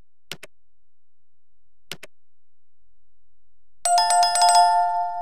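Two mouse-click sound effects about a second and a half apart, then a loud, bright bell chime ringing out from about four seconds in: the click-and-bell effects of a like, subscribe and notification-bell button animation.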